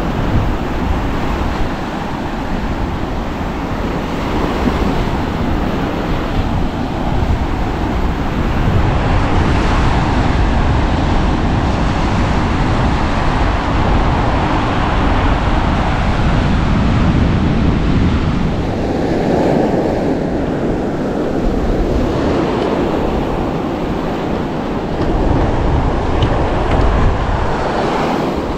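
Strong wind buffeting the microphone, heavy and rumbling, over the steady wash of breaking surf.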